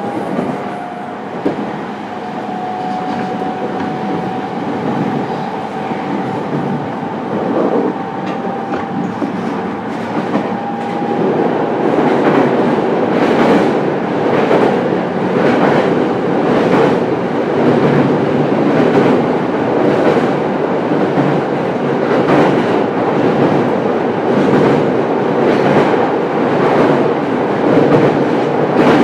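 JR East E231-series electric train heard from inside its motor car: the traction motor whine rises slowly in pitch for about the first eleven seconds, then fades. From about twelve seconds in, the running noise gets louder and the wheels click over rail joints about once a second as the train runs at speed.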